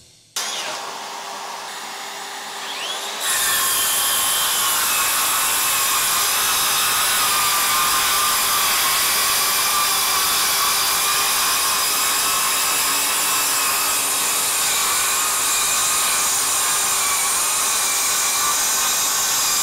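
Makita XSH04 18V brushless sub-compact circular saw with a 6-1/2" blade. It starts about half a second in and runs with a rising whine for about three seconds, then cuts under load through a thick stack of boards in one long, steady cut with a constant whine over the sawing noise.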